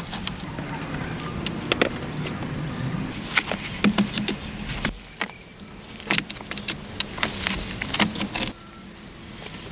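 Irregular sharp clicks and knocks of wood being handled during shelter building, over a low steady hum; about eight and a half seconds in it drops suddenly to quieter background.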